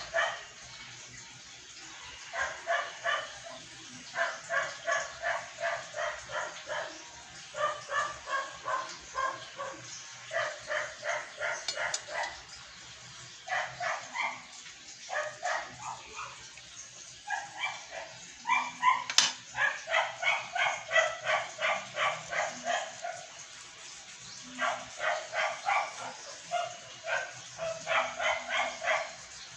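A dog barking repeatedly, in runs of quick barks broken by short pauses.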